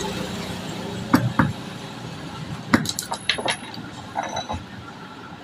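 A scattered series of light clinks and knocks of small hard parts or tools being handled during hand repair work on an electric drill.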